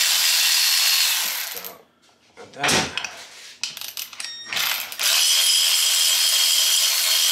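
Cordless electric ratchet spinning a mounting bolt in with a steady, high-pitched whir. It stops about a second and a half in, followed by a few clicks and knocks, and runs again from about five seconds in.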